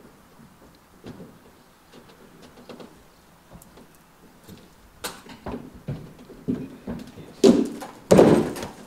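A Friesian horse's hooves knocking and thudding on the floor and ramp of a horsebox as it is led out, the heaviest thuds near the end. Faint clicks and knocks come first, from the horse being untied.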